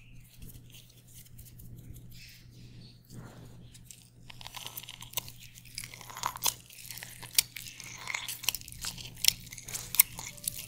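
Chopped parsley rustling softly as it drops into a glass bowl, then a lime half squeezed by hand over it: the rind crackles and juice drips onto the leaves in a run of sharp ticks, a few of them loud.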